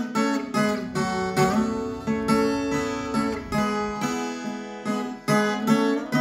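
Background music played on a viola caipira, the Brazilian ten-string folk guitar: a run of plucked notes, a few a second, each ringing and fading.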